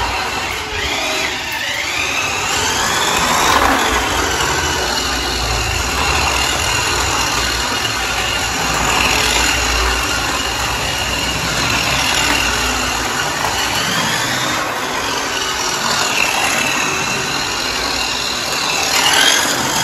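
Toy remote-control racing car driving across a tiled floor: a high whine that rises and falls in pitch again and again as the car speeds up and slows down.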